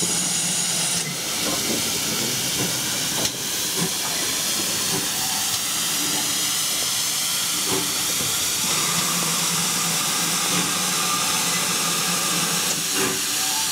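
Steady hiss of escaping steam from GWR Modified Hall 4-6-0 No. 7903 'Foremarke Hall', with steam leaking around the cylinders and from the chimney.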